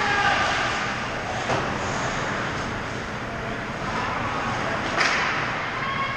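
Ice hockey game sound in an indoor rink: a steady wash of skates on ice and arena noise, with a sharp clack about a second and a half in and a louder one about five seconds in, from sticks or the puck.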